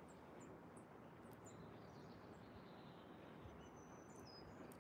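Near silence outdoors: faint background hiss with distant small birds chirping, short high chirps repeating and a thin whistled note near the end.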